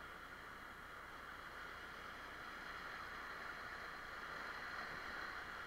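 Steady rush of river whitewater from a rapid, growing a little louder about four seconds in.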